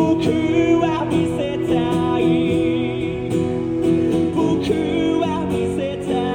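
Live acoustic guitar with a singer holding long, wavering notes, sung to his own accompaniment.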